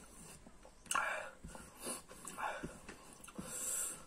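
Close-up eating sounds: a man eating curry and chicken with his fingers, making several short mouth and breath noises about a second apart, with a longer breathy hiss near the end.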